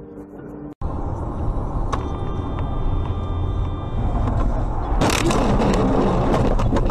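Dashcam car audio: steady low road and engine rumble, with a steady high tone for about two seconds in the middle. About five seconds in, a sudden loud harsh rush of noise comes in and keeps going.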